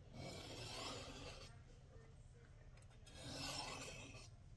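Kershaw Camp 10 blade drawn down the rods of a Lansky TurnBox sharpener, two faint scraping strokes: sharpening a rough, burred edge.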